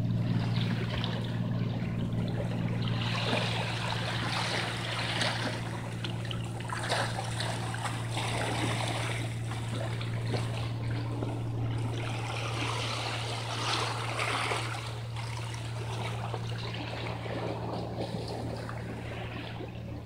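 Seawater washing and trickling among shoreline rocks, swelling in surges every few seconds as the tide comes in, over a steady low hum.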